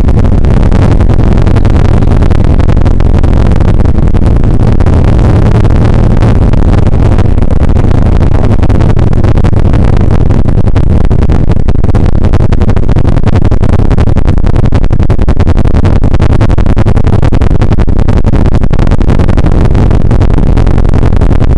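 Bell UH-1 Huey helicopter in flight heard from inside the cockpit: loud, steady rotor and gas-turbine engine noise, deepest and strongest in the low range, with no let-up.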